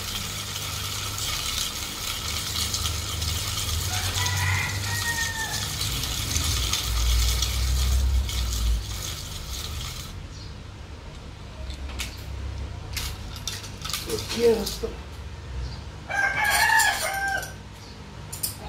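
A fishing reel being cranked to fill it with braided line, its gears whirring steadily for about ten seconds, then a few scattered clicks. A rooster crows twice, faintly about four seconds in and louder near the end.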